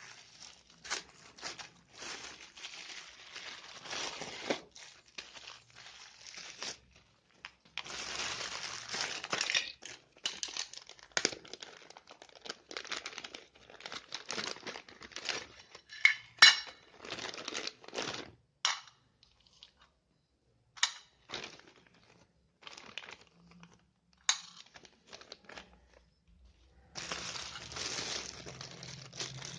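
Plastic packaging crinkling and rustling in irregular bursts as it is handled, with one sharp click about halfway through.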